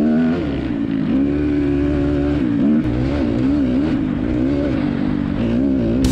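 Dirt bike engine running, its pitch rising and falling again and again with the throttle.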